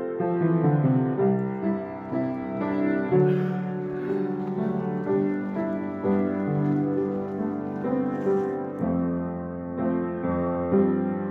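Background music: a piano piece playing gentle held chords and melody notes.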